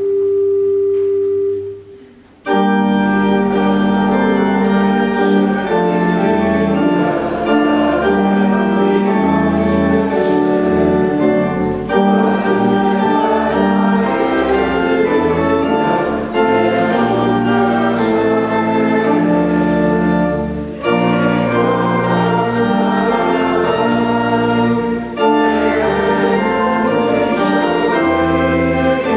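Church organ playing full chords over deep pedal bass notes. A soft held note fades out, and about two and a half seconds in the full organ comes in loudly.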